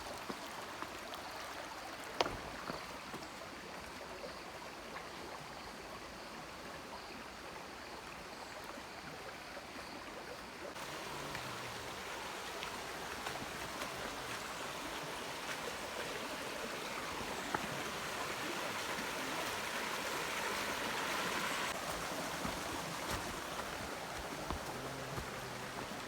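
Steady rush of flowing water from a rainforest stream, growing louder about ten seconds in. A faint high insect tone sits above it at first, and there is one sharp click about two seconds in.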